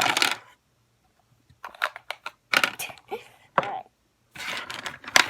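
Tiny miniature novelty grocery items from a Wacky Packages mini pack tumbling out and being handled on a surface. Runs of small clicks and rattles with some rustling of the packaging.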